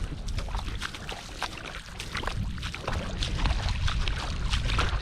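Wind rumbling on the microphone, with scattered splashing and sloshing of shallow water.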